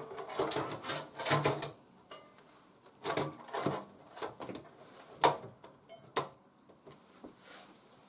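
Irregular clicks, taps and scrapes of a motherboard being set into a PC case and shifted to line its mounting holes up with the standoffs, with one sharper knock about five seconds in.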